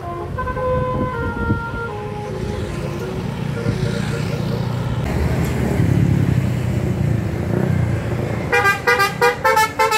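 A bus's engine rumbling as it passes, then, about a second and a half before the end, its telolet (basuri) multi-tone musical horn starts playing a quick, choppy tune of short notes.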